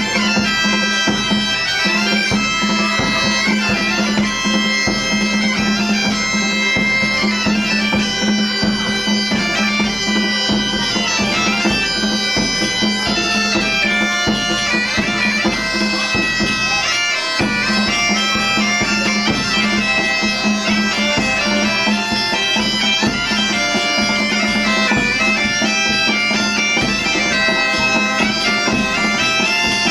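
Galician bagpipes playing a tune over a steady drone, with drum beats alongside. The drone breaks off briefly about halfway through, then resumes.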